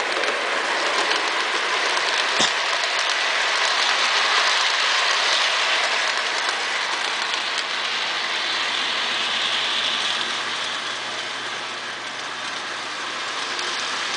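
Lionel model train with box cars rolling over the track: a steady clattering rush of wheels on the rails over a faint motor hum, with one sharp click about two and a half seconds in. It grows quieter toward the end as the train runs away.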